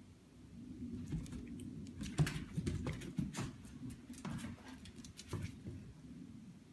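A Chihuahua's claws and paws clicking and pattering on a hardwood floor as it scrambles after a moving target: an uneven run of quick taps, busiest in the middle of the stretch.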